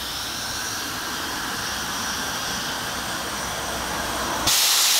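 A homemade mill steam engine with a 3-inch bore and 4-inch stroke runs on steam with a steady hiss. About four and a half seconds in, a much louder steam hiss breaks in suddenly and holds steady: the boiler's pop-off safety valve is blowing off.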